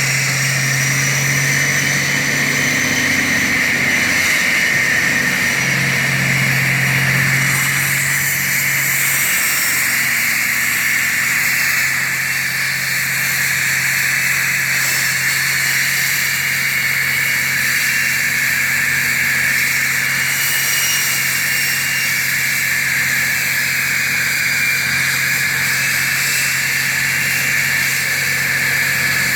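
Concrete floor saw cutting a slab, running steadily: a low machine hum under a high, hissing whine from the blade.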